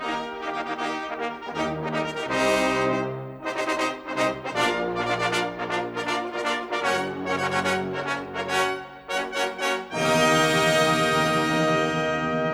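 Full concert wind band playing, with the brass leading: a run of short, accented repeated chords, then a loud sustained chord about ten seconds in that begins to fade.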